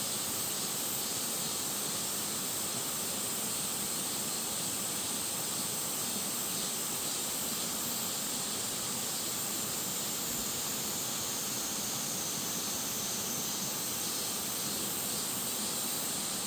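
Mountain valley stream flowing: a steady, hissing rush of water.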